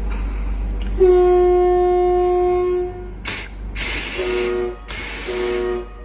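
A train's air horn sounded from the cab. One long single-note blast starts about a second in, then two short blasts follow near the end, with sharp hisses of air between them over a steady low hum.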